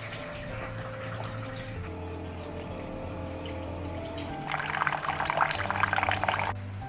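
Background music with slow, steady notes. About four and a half seconds in, a loud splash of water-like pouring noise lasts about two seconds, then cuts off suddenly.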